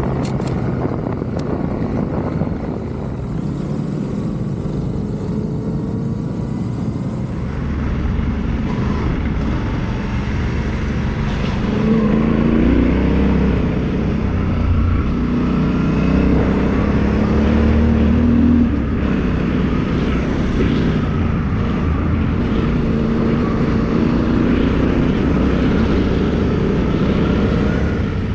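Yamaha Ténéré 700 parallel-twin engine running under way on a trail ride. Over the first seven seconds or so it is partly masked by a rush of noise; after that the engine note is louder and its revs rise and fall.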